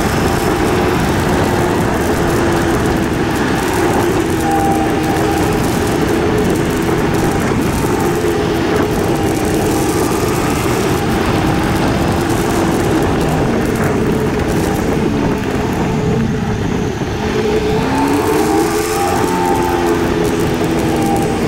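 KTM Duke 250's single-cylinder engine running under way over a steady rush of noise, its pitch wavering with the throttle; about three-quarters of the way through the revs drop and then climb again. The audio is sped up to double speed.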